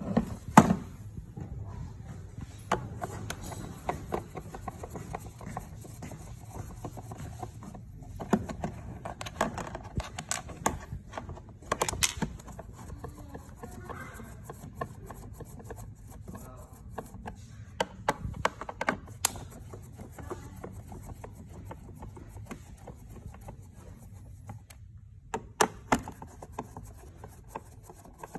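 Irregular knocks, clicks and rubbing from hands-on work with tools, with a few louder strikes standing out.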